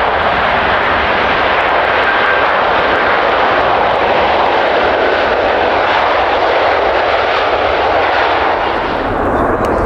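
Airliner engines, a loud steady rush of engine noise. The higher part of the sound drops away about nine seconds in.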